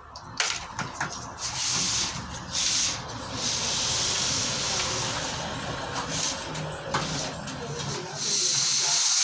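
Loud hissing noise that swells and fades in long stretches of a few seconds each, with a few sharp clicks.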